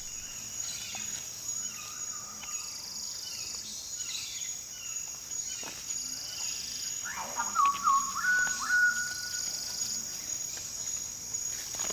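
Rainforest ambience: a steady, high-pitched insect drone throughout. About seven seconds in, a bird whistles a short run of clear notes that step between two pitches.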